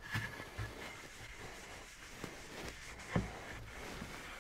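Faint rubbing of a cloth rag over a torched pine board, working in boiled linseed oil, with a few light knocks from the board on the bench.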